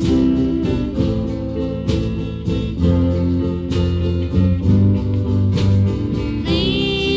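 Slow band music with held chords, bass and a beat about once a second; a singing voice comes in near the end.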